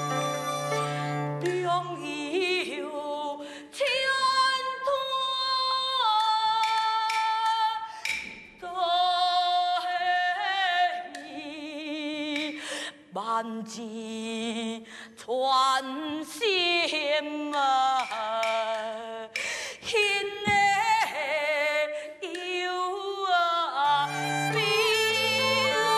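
Taiwanese opera (gezaixi) aria sung solo with vibrato over traditional instrumental accompaniment, the long sung phrases broken by short instrumental passages. It is a lament: the lyrics speak of a stranded dragon mocked by shrimp and of a heart pierced by ten thousand arrows.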